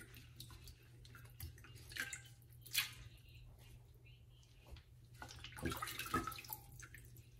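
Wet cooked lasagna noodles being laid and pressed into an aluminium foil pan by gloved hands: soft, wet slaps and squelches with light crinkles from the foil, loudest about two and three seconds in and again in a cluster near six seconds.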